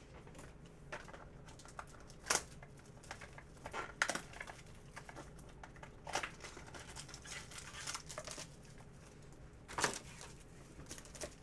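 Trading cards and foil pack wrappers being handled: quiet intermittent rustling and crinkling, with a few sharper rustles.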